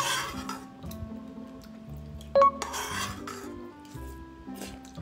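Metal spoons clinking and scraping against a wok and ceramic bowls while eating, over background music. Two sharp clinks, one at the start and one about two and a half seconds in, each followed by a brief scrape.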